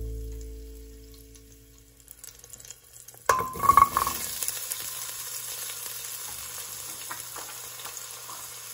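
Background music fades out, then about three seconds in hot cooking oil in a pan breaks into a sudden loud sizzle with a few sharp clinks. It settles into a steady frying sizzle.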